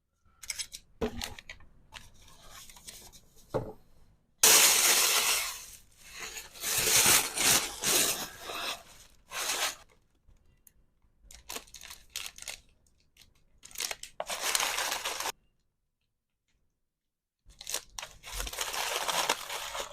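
Packaging being torn and crinkled by hand, in a series of rustling, tearing bursts of a second or two with short pauses between; the loudest tear comes about four and a half seconds in.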